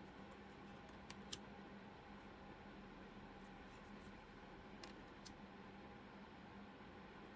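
Near silence with a faint steady hum and about four soft clicks: oracle cards being flipped through one after another.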